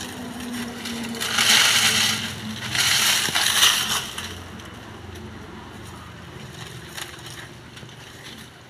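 Dry coconut palm fronds and dead leaves crackling and rustling as they are pulled and trampled, in two loud bursts over the first few seconds, then only faint scattered rustles.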